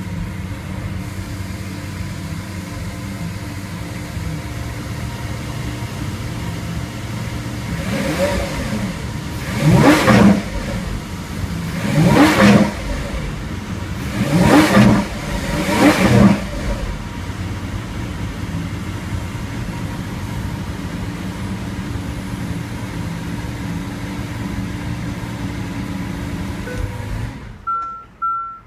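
Lamborghini Aventador LP700-4 Roadster's 6.5-litre naturally aspirated V12 running at idle, blipped four times in the middle with quick revs that rise and fall within about a second each, then settling back to idle. Near the end the engine sound stops abruptly and a repeated high electronic beep starts.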